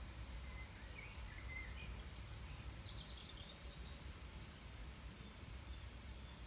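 Faint chirping of small birds, a cluster of short high calls from about one to four seconds in and a few fainter ones later, over a low steady background rumble.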